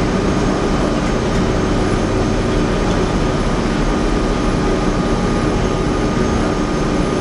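Cog railway train running, heard from inside the passenger car: a steady, loud drone of its diesel engine and drive with a few constant tones through it.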